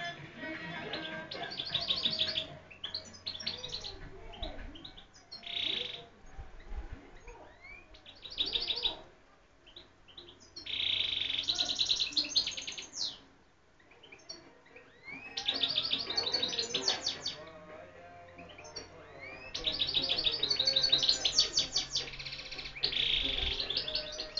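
European goldfinch singing: phrases of rapid twittering trills and rising notes, a few seconds each, broken by short pauses, the longest and loudest phrases in the second half.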